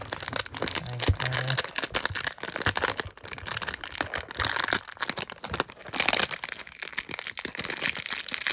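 Plastic packaging crinkling and rustling as it is handled and unwrapped, with many small clicks and crackles.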